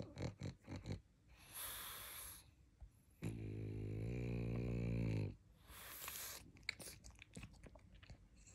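A sleeping pug snoring: a few quick mouth smacks, a hissing breath, then one long, pitched snore of about two seconds, followed by another hissing breath and small clicks.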